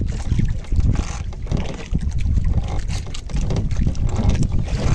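Wind buffeting the microphone on a small boat at sea: a loud, uneven rumble with scattered light knocks.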